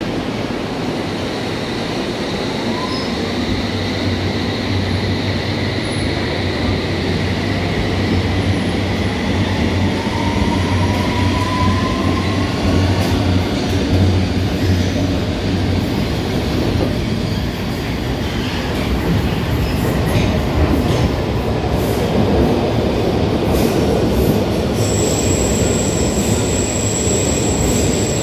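London Underground S Stock trains running through an underground station: a steady rumble and low hum, a faint rising motor whine about ten seconds in, and a scatter of wheel clicks over the rail joints. Near the end a steady high squeal sets in as a second train runs in on the near track.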